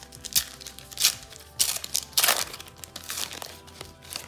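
A Topps Match Attax trading-card booster pack's wrapper being torn open and crinkled by hand, in several sharp crackling rips, over faint background music.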